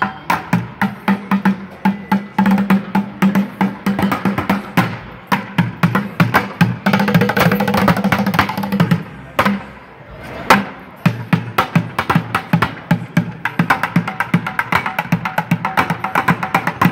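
Two bucket drummers playing upturned plastic buckets with drumsticks, a fast, dense rhythm of stick strikes. About ten seconds in it eases off for a moment, then comes back in with a loud hit.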